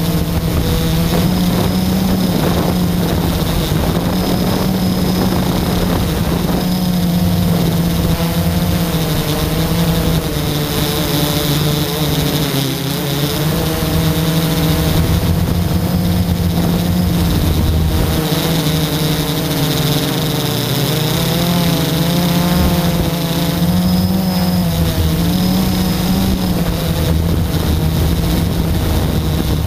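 Blade 350 QX quadcopter's four electric motors and propellers buzzing steadily in flight, heard from the onboard camera. Their pitch wavers up and down as the throttle changes.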